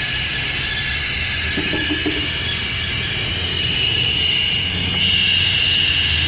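Ford van engine running with a steady hissing whistle from a vacuum leak, over a low engine hum. The thin whistle grows stronger about four seconds in.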